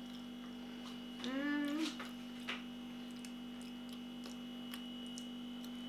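Steady electrical mains hum, with a short rising hummed 'mm' from a voice about a second in and faint clicks of chewing on crunchy pizza crust.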